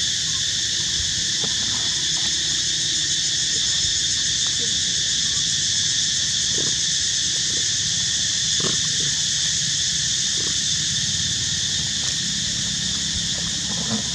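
Steady high-pitched insect drone over a low rumble, with a few faint short chirps about halfway through.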